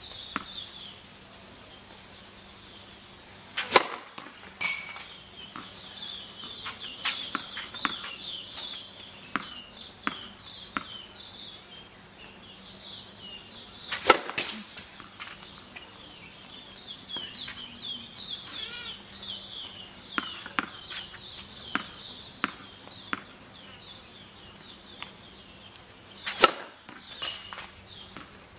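Tennis racket striking the ball on three hard serves, about ten seconds apart, with quieter taps between them as the ball is bounced before each serve. Birds chirp steadily in the background.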